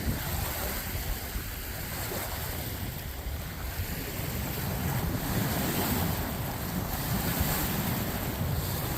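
Strong wind blowing and buffeting the microphone: a steady rushing noise with a heavy low rumble that swells a little in the second half.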